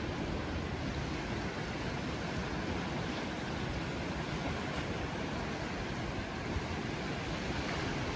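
Steady rushing of wind on the microphone mixed with surf, an even roar heaviest at the low end with no distinct events.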